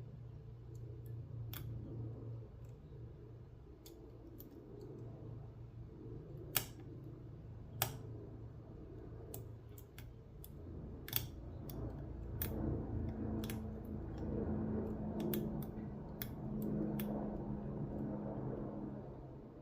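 Small metal clicks and handling noise from a brass padlock being taken apart by hand: scattered sharp clicks, three of them louder, with rustling handling in the second half over a low steady hum.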